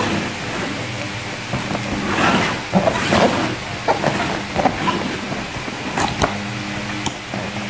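Hands sliding, rubbing and tapping on a cardboard box, with the box scraping and knocking on the floor as it is turned, over a steady low hum. The rubbing is busiest a couple of seconds in, and there are two sharp clicks about six seconds in.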